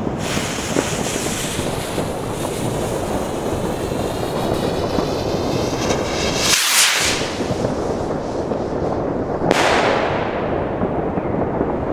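A lit firework rocket's fuse hissing, then the rocket rushing up about six and a half seconds in. About three seconds later it bursts with a sharp bang that fades into a hiss, all over a steady low rush.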